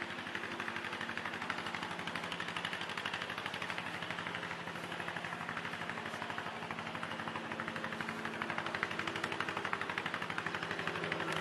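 Honeybees buzzing around an opened top bar hive: a dense, steady hum with a fast, even flutter.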